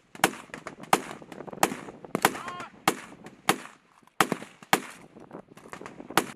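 Rifle fire: about nine single shots, one roughly every two-thirds of a second with a pause before the last, each a sharp crack with a short echoing tail.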